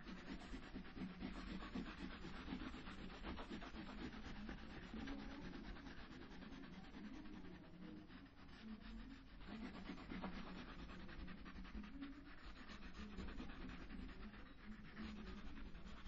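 Crayon scribbling on paper: fast back-and-forth shading strokes in a dense scratchy rub, with a brief pause about halfway.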